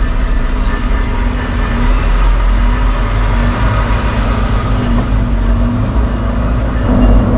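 Semi-truck's diesel engine running as the truck pulls forward, heard from inside the cab: a steady low drone that swells a little about two seconds in and again near the end.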